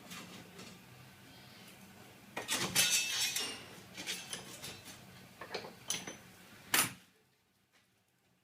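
Steel cable tray and tools being handled: metal clinks, clatter and scraping, with a rattling stretch a little over two seconds in and a sharp metallic knock near seven seconds, after which it falls nearly silent.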